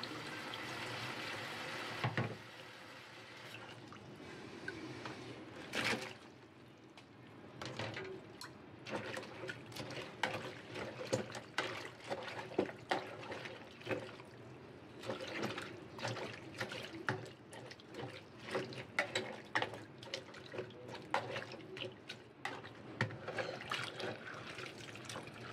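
Tap water running into a plastic basin for about two seconds, then stopping. After that come many small uneven splashes and clicks as chopped mustard greens are stirred in the water with chopsticks and swished about by hand.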